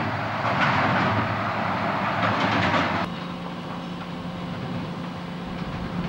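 Diesel locomotive hauling a rail work train past at a distance: a steady engine drone, with a louder rushing hiss over it that cuts off abruptly about three seconds in.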